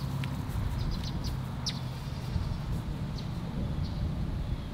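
Small birds giving short, high chirps now and then over a low, steady outdoor rumble.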